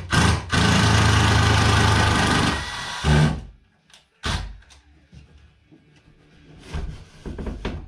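Electric impact driver running for about two seconds, driving a fastener into the timber, trailing off before it stops. A few separate knocks of wood follow later.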